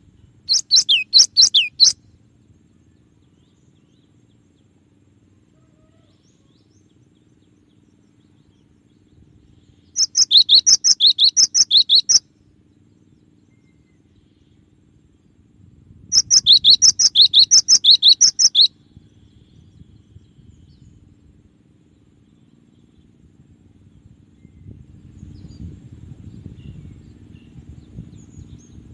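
Cinereous tit (gelatik batu) singing: three bursts of rapidly repeated high, sharp two-part notes, each burst about two seconds long, separated by long pauses.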